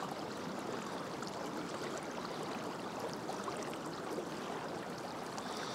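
Shallow river water flowing steadily, an even, constant rush of current.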